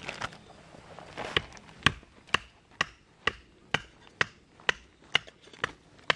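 About a dozen sharp strikes at a steady pace of roughly two a second. Each strike has a brief ringing tone.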